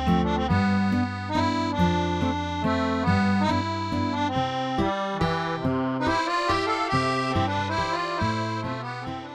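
Instrumental background music of held chords that change every half second or so, fading out near the end.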